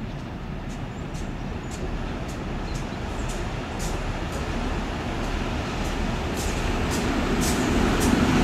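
Double-headed EMD G26C diesel-electric locomotives, with their EMD 645 two-stroke diesel engines, rumbling as they approach at the head of a freight train, growing steadily louder.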